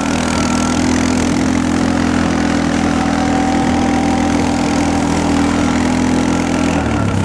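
Engine of the vehicle towing a sled on a strap, running at a steady speed; its pitch dips and then rises just before the end.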